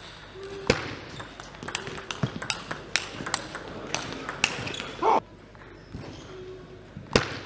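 Table tennis rally: the ball clicking sharply off bats and table in quick alternation for about four seconds. After a short lull, a single sharp hit comes near the end.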